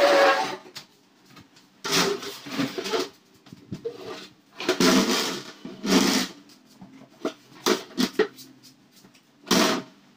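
Irregular bursts of rustling and clatter, with a few sharp clicks, as household items are handled and moved about.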